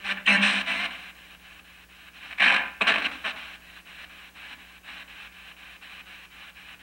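P-SB7 spirit box sweeping down the FM band, played through a small Blackstar amplifier. Choppy radio static, cut into rapid fragments as it steps from station to station, with short louder bursts of broadcast sound in the first second and again about two and a half seconds in.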